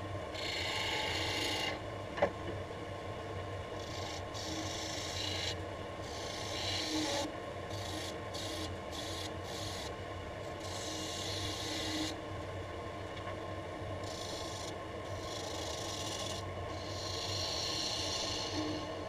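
Wood lathe running with a steady hum while a hand-held turning tool cuts the spinning laminated wood blank in repeated passes, each a hissing scrape that comes and goes. A single sharp click about two seconds in.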